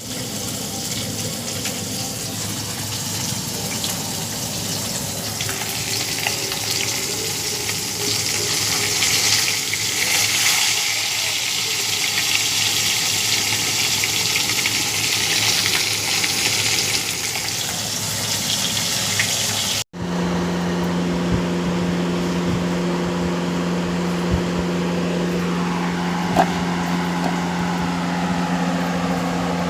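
A steady hissing noise for about twenty seconds. It cuts off abruptly, and a steady machine hum follows, with a few faint clicks.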